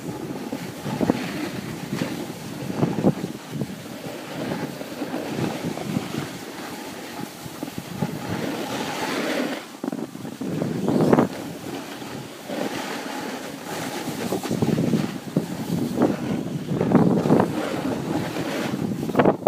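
Wind rushing over a phone's microphone during a snowboard run, mixed with the board sliding and scraping over the snow; the rushing swells and drops unevenly.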